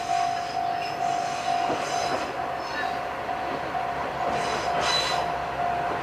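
Railway level crossing warning bell ringing steadily at about two strokes a second while a train runs past on the rails, likely a KiHa 120 diesel railcar. Its wheels squeal briefly about four and a half seconds in.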